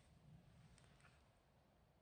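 Near silence, with a couple of faint crackles from a wood fire about a second in.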